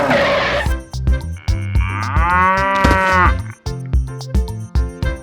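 A cow mooing once, a long drawn-out call lasting about two seconds, over light rhythmic background music with a plucked beat.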